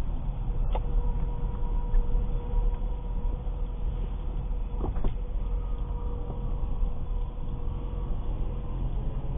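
A steady, high squeal from a 2006 Ford Escape Hybrid on the move comes in about a second in and fades out near the end, over a low road rumble, with a couple of short clicks. The owner tags it as a brake squeak.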